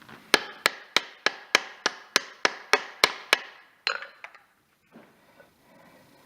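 A hammer tapping a new torque converter (pump) seal into a Porsche Tiptronic transmission housing, driving it in until it sits flush. It gives about eleven even, sharp taps at roughly three a second, then a few lighter knocks.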